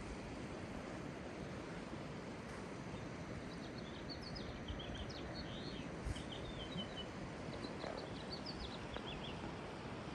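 A small songbird sings two short phrases of quick, high chirps, the first about four seconds in and the second about eight seconds in, over a steady rushing background noise.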